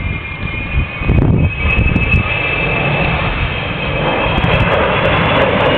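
Avro Vulcan XH558 flying past, the jet noise of its four Rolls-Royce Olympus turbojets: a high whine over a deep rumble, growing louder about a second and a half in and again near the end.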